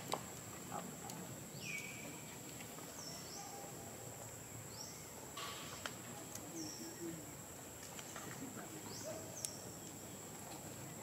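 Outdoor ambience: a steady high insect drone, with about half a dozen short bird chirps that slide in pitch and a few faint clicks.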